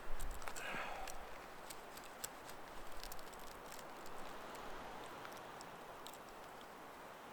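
Faint ambient hiss with scattered small, sharp ticks and clicks.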